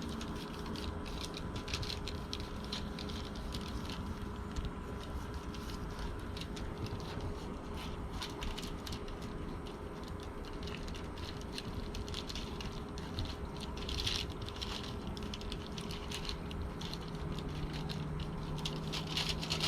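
Hands rubbing seasoning onto a whole raw pompano: faint, irregular wet crackles and rustles, with a couple of busier patches, over a steady low hum.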